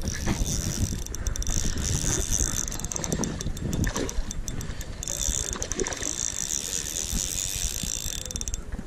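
Spinning reel being cranked: a fast, steady clicking whir from its gears as line is wound in, stopping briefly just before the end. Low wind rumble on the microphone underneath.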